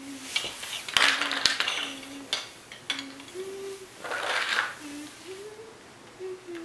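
Plastic Tinkertoy pieces clicking and rattling as they are handled and set down, in two louder bursts about a second in and about four seconds in. Throughout, someone hums a tune, stepping between notes.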